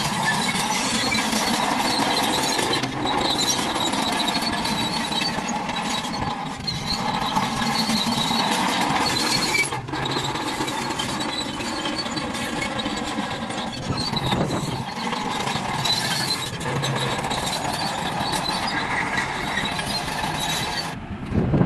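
Small electric motors and gearboxes of toy construction vehicles running continuously, with a steady high whine over a dense mechanical noise.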